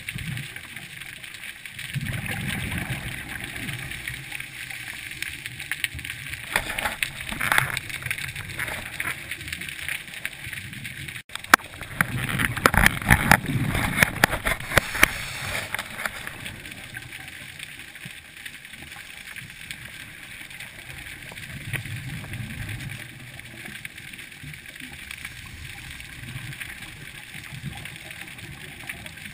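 Scuba diver breathing through a regulator, recorded underwater: a steady hiss with irregular gurgling rushes of exhaled bubbles. The loudest, crackling bubble burst comes about twelve to sixteen seconds in.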